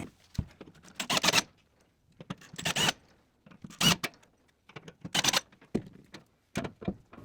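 A series of short clicks and rattles, about seven brief bursts with silence between them, like small hardware being handled.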